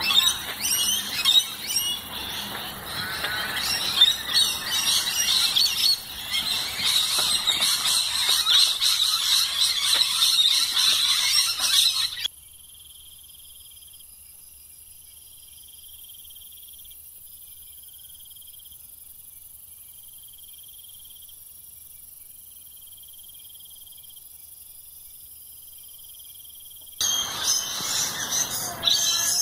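A chorus of birds chattering and screeching in dense, high-pitched calls. About twelve seconds in it drops away to a faint, thin, repeating high sound with nothing beneath it, and the calling returns near the end.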